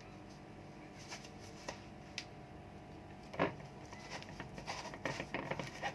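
Handling noises: a few light clicks, a louder knock about three and a half seconds in, then a run of rubbing and clattering near the end.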